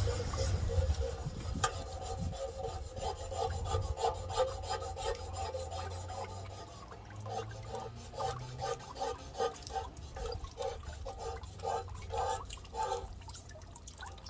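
Hand wet-sanding a metal espresso machine panel with wet 400-grit sandpaper, rubbing off loose old paint. Rhythmic back-and-forth scrubbing strokes, about two to three a second in the second half.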